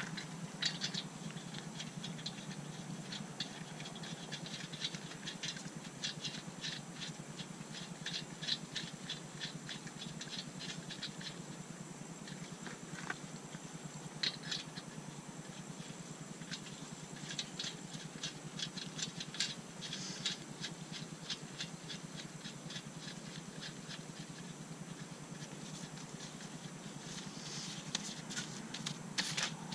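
Lug nuts being spun onto wheel studs by hand: runs of rapid, light metallic clicking and rattling as the threads turn, with short pauses between nuts.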